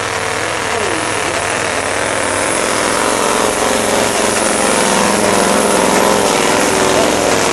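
Pulling truck's diesel engine running flat out under heavy load as it drags a weight-transfer sled, loud and steady, building slightly in loudness.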